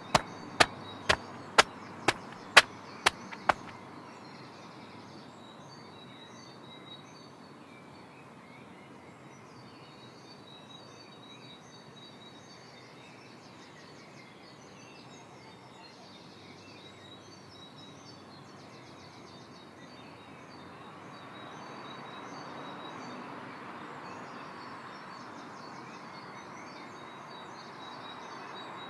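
A run of sharp knocks, about two a second, that stop about three and a half seconds in. Then a steady outdoor ambience with faint high bird chirps and trills, swelling a little about two-thirds of the way through.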